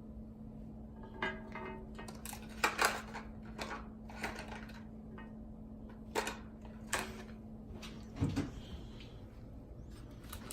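Small plastic toy figures and their boxes being handled and put away: a string of irregular clicks and taps, with a low knock about eight seconds in. A faint steady hum lies underneath.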